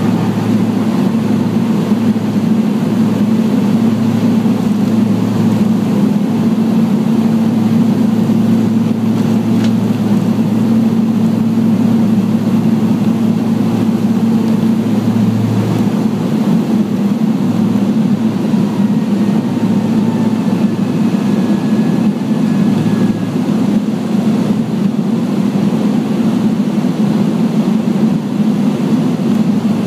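Beech 1900D's twin Pratt & Whitney PT6A turboprops at takeoff power, heard from inside the cabin through the takeoff roll and initial climb: a loud, steady drone of engines and propellers. A lower hum drops away about halfway through.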